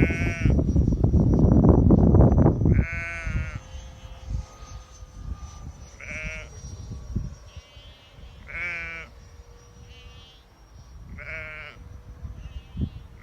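Sheep bleating repeatedly, a loud wavering bleat every two to three seconds with fainter bleats from other sheep in between. Wind buffets the microphone for the first few seconds, and a faint steady whine runs underneath.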